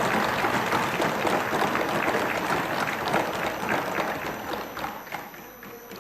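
Members of a legislative assembly applauding, a dense patter of many hands that thins out and dies away about five seconds in.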